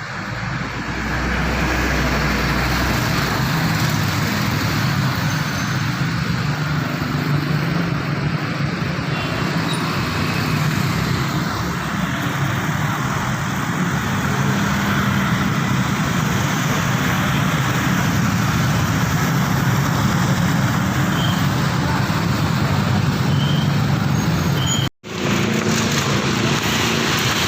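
Steady road traffic noise with vehicle engines running. The sound cuts out completely for a moment about 25 seconds in.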